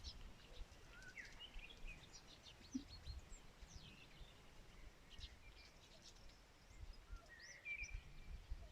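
Songbirds chirping and calling faintly: many short high chirps and quick rising and falling whistled notes from more than one bird, over a low uneven rumble.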